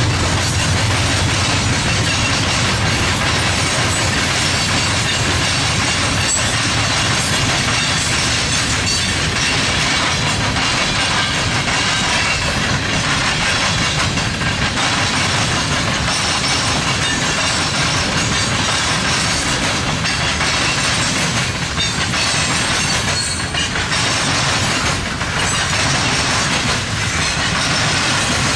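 Diesel-hauled freight train rolling past at close range. The low drone of a trailing diesel locomotive fades in the first couple of seconds. A long string of hopper cars follows, their wheels rumbling and clacking over the rail joints.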